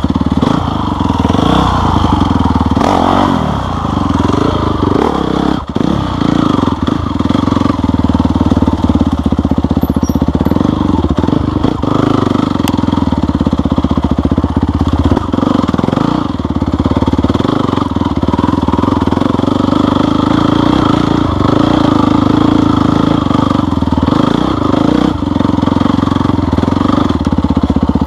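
Engine of an off-road vehicle running continuously on a trail, its revs rising and falling.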